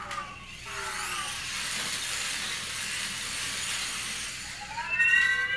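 Parrot Jumping Sumo minidrone's electric wheel motors whirring steadily as it drives. Near the end it gives a loud electronic chirp rising in pitch, like R2-D2.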